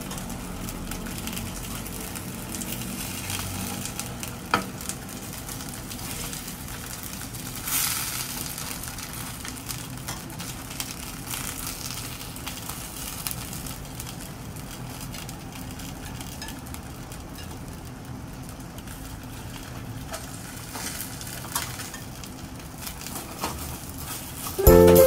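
Gyoza frying and sizzling in a pan, with a few sharp clicks and scrapes of the slotted spatula against the pan and a louder hiss about eight seconds in. Music cuts in at the very end.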